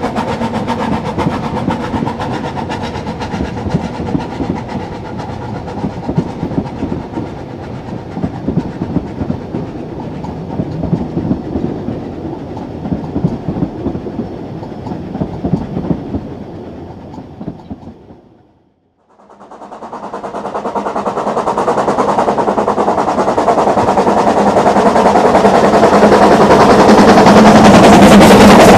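Ffestiniog Railway narrow-gauge steam train running. The sound fades out about two-thirds of the way in, then a train fades back in and grows steadily louder toward the end.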